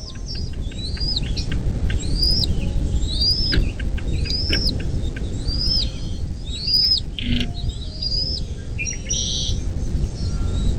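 A bird giving a high whistled call that rises and then falls, repeated about once a second, over a steady low rumble.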